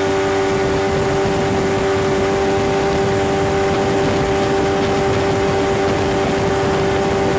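Promax 9.9 outboard motor running steadily at full throttle, near 6,000 rpm. The owner takes this for over-revving, a sign that the propeller pitch is too low.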